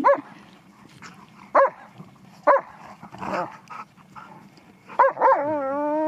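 Dogs barking in play: four short, sharp barks spread a second or so apart, then near the end a long, drawn-out, wavering howl-like call.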